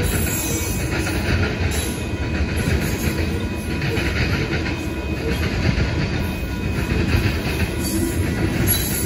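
Freight train of covered hopper cars rolling past at steady speed, a continuous rumble of steel wheels on the rails.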